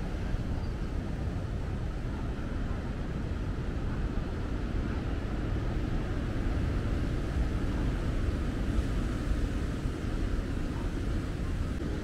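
Steady rushing noise of ocean surf breaking along the shore.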